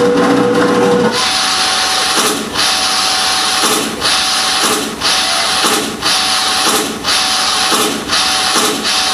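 Performance music track: about a second in, the pitched notes stop and a harsh, machine-like noise takes over, cutting out and restarting roughly once a second, with a faint steady tone underneath.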